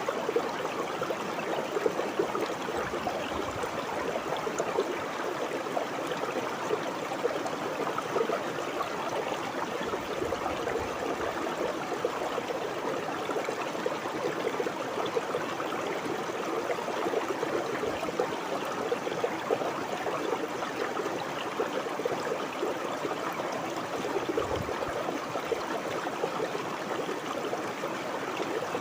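Water of a small river or stream flowing and babbling steadily over rocks, a dense even burble with no breaks.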